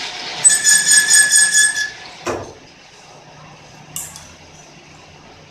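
Metal-on-metal squeal on a lathe during a thread-cutting pass, high and pulsing for about a second and a half, followed by a sharp click and a softer one later over the low hum of the running machine.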